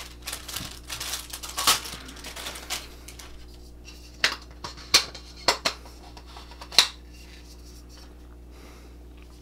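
Plastic wrapping rustling and crinkling as a camera lens is unwrapped, then five or six sharp clicks and taps as the lens is handled.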